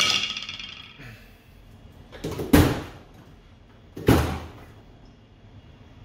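Metallic ringing from the opened hard drive's parts, several pitches fading over about a second, then two short rushing bursts about a second and a half apart.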